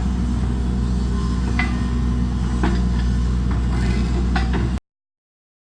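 An engine running steadily at idle, with a few light metallic clinks and knocks over it; the sound cuts off abruptly near the end.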